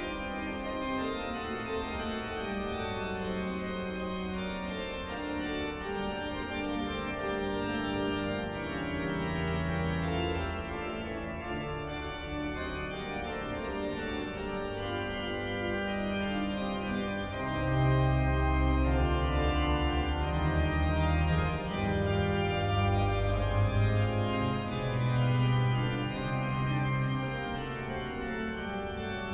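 Church organ playing slow, sustained chords. A little past halfway, deep pedal bass notes come in and the music grows louder for several seconds, then eases back.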